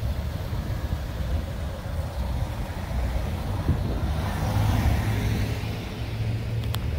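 Street traffic: a car driving slowly past at close range, its engine and tyres loudest about four to five seconds in, over a steady low engine rumble.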